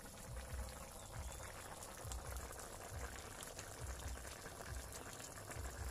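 A wok of chicken stew with pork and beans, potatoes and chayote bubbling on the stove, with soft, irregular low plops from the broth.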